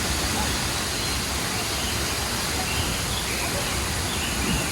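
Steady, even rush of a large waterfall, with a few faint high calls over it in the second half.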